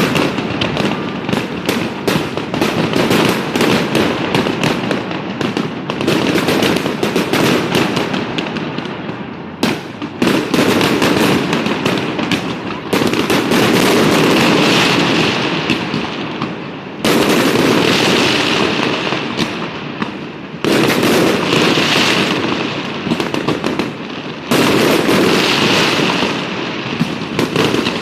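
Fireworks display: a continuous barrage of rapid bangs and crackling, loud throughout, with fresh volleys kicking in abruptly several times.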